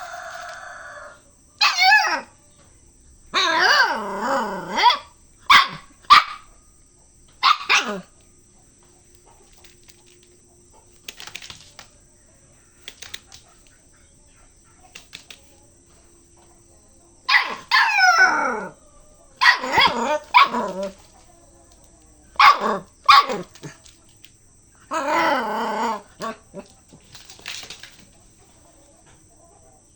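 A puppy barks and yips in play. The short, high calls come in two bunches with a quiet spell of several seconds between them.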